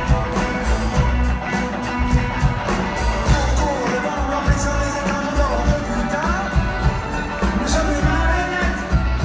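Live rock band playing with a steady drum beat, electric guitar and violins, with gliding melody lines over the top.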